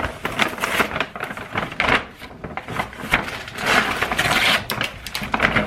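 Groceries being unpacked from shopping bags: irregular crinkling and rustling of the bags, with clicks and knocks as items are handled and set down, loudest about four seconds in.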